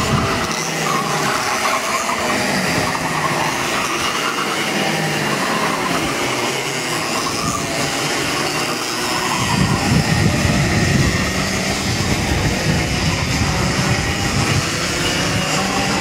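Several 125 cc two-stroke KF racing kart engines running at speed on the circuit, their pitch rising and falling with the revs through the corners. The sound gets louder and heavier about ten seconds in as karts pass close by.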